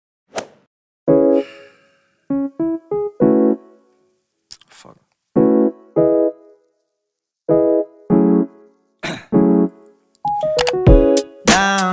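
Edited-in music: short electric piano chords played as separate stabs with pauses between them, after a single click. Near the end denser music comes in with a voice.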